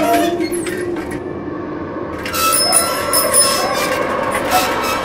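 Animated tricycle prop playing its squeaking-wheels sound effect: a high, steady squeal comes in about two seconds in and holds.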